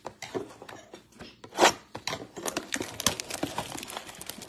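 A short, sharp tear about one and a half seconds in, then steady crinkling as a plastic trading-card pack wrapper is pulled open by hand.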